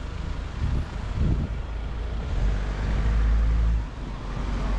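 Street traffic: cars driving past on the road beside the sidewalk, with a louder low engine rumble in the second half that drops off suddenly near the end.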